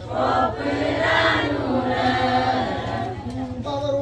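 Several voices singing together in a chant-like chorus, with a steady low hum underneath; the singing starts abruptly.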